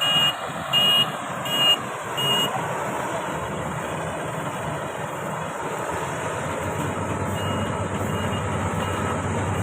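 Marksan K-Bos MS-1200 combine harvester running, its engine a steady rumble, with its reversing alarm beeping: four loud beeps in the first couple of seconds, then fainter beeps near the end.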